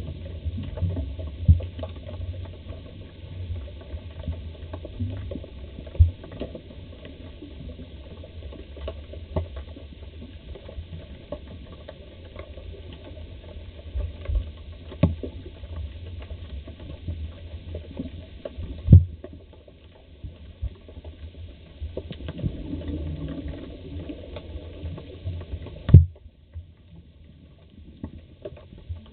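Muffled underwater sound through a camera's waterproof housing: a steady low rumble with scattered faint clicks and a few sharper knocks.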